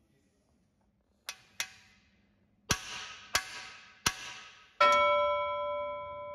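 Hammer blows on a steel camshaft bearing installer tool, driving a cam bearing into an engine block bore: sharp metallic strikes at uneven intervals. The loudest, about five seconds in, leaves a ringing metallic tone that fades slowly.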